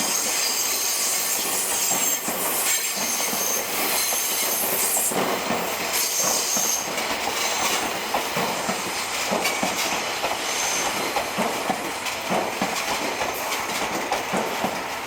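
Wheels of the Seibu 263F train set squealing on the rails as it is hauled past, a high squeal through the first half that fades out, followed by clicking over the rail joints.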